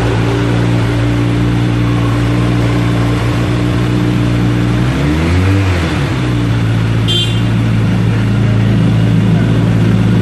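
Kawasaki Z900's inline-four warming up at a steady idle through an SC Project S1 slip-on exhaust, with one short throttle blip about five seconds in, the pitch rising and dropping back to idle. The stock header and catalytic converter are still fitted, which the owner says holds back the exhaust note.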